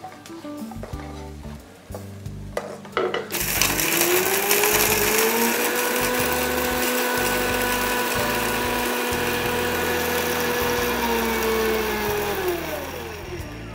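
Electric mixer grinder grinding dry-roasted whole spices and dried red chillies with water in its steel jar. The motor starts about three seconds in, spins up with a rising whine, runs steadily at full speed, then winds down with a falling whine near the end. Before it starts there are a few light clinks as the spices are tipped into the jar.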